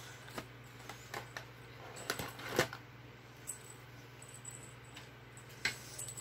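Scattered light clicks and taps, about nine at irregular intervals, from play with a cat and a feather wand toy, over a faint steady hum.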